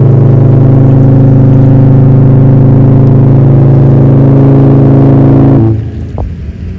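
Large Holland America Line cruise ship's horn sounding one long, deep, steady blast that stops abruptly near the end.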